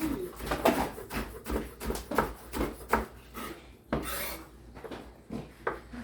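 Kitchen knife slicing green onions, knocking on a cutting board in an uneven run of short strokes, about two a second.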